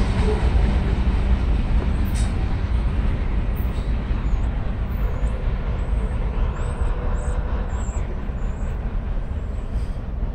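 Rumble of a loaded coal train's hopper cars rolling over the rails, slowly fading as the end of the train moves away. A few faint bird chirps past the middle.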